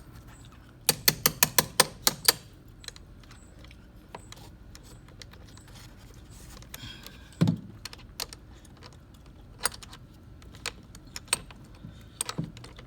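Ratchet wrench with socket and extension clicking and clinking on a car battery's negative terminal: a quick run of about eight clicks a second or so in, then a knock and scattered metal taps as the wrench, stuck tight in the corner by the terminal, is worked loose.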